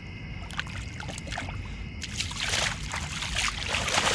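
Shallow river water splashing and sloshing right at the microphone of a waterproof camera held at the surface. A few small drips and splashes come first, then heavy splashing from about halfway that grows louder toward the end.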